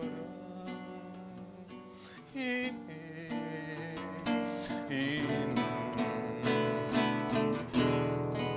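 Acoustic guitar playing an instrumental passage between sung verses: held chords, then strummed chords coming more often and louder from about halfway through.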